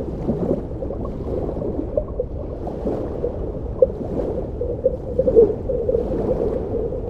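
Water gurgling and bubbling, a continuous wash dotted with many small irregular pops.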